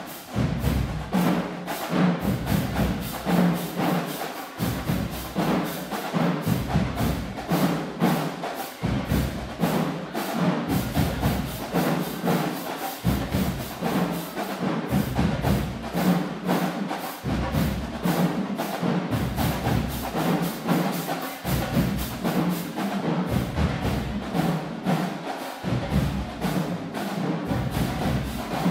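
Marching band playing, led by a fast, driving drumline beat with heavy low-pitched hits.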